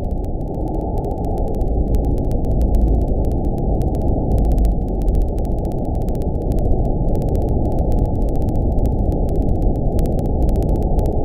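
Loud, steady, muffled rumble of tsunami floodwater surging through a town, with no distinct events and no high end.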